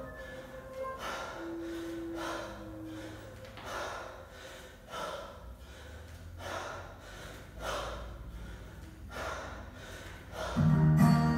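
Hard rhythmic breathing of a woman doing kettlebell snatches: short forceful breaths in time with the reps, about one every second and a half, over faint background music. Near the end, guitar music comes in loud.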